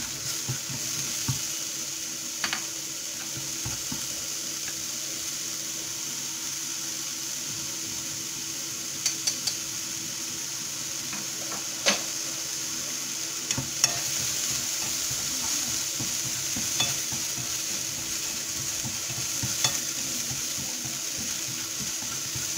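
Small mushrooms frying in a little oil in a nonstick frying pan, with a steady high sizzle. A few sharp clicks and taps break through it now and then as the mushrooms are stirred.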